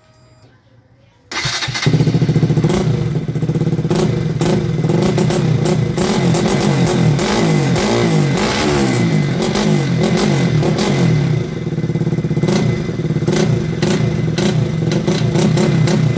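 KTM RC 200's single-cylinder engine breathing through a Yoshimura R-11 full exhaust system, coming in suddenly about a second in, then running and revved up and down repeatedly.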